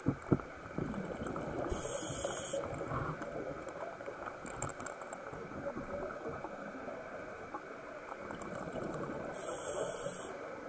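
Underwater ambience recorded through a camera housing: a steady rushing water noise, with a few sharp knocks right at the start.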